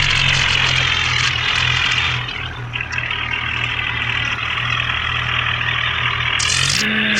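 Bulldozer's diesel engine running steadily at an even low pitch, then revving up, its pitch stepping higher near the end.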